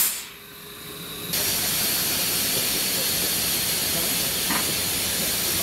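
Steam hissing from a narrow-gauge steam locomotive standing in steam. It is quieter for the first second, then a steady, loud hiss sets in abruptly.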